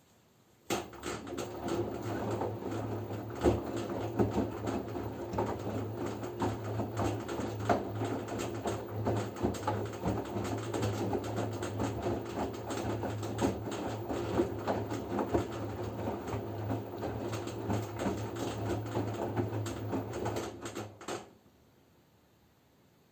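LG F10B9LD front-loading washing machine drum turning during the first rinse: a steady motor hum with laundry and water sloshing and clattering inside the drum. It starts about a second in and stops about two seconds before the end, a drum rotation phase between pauses.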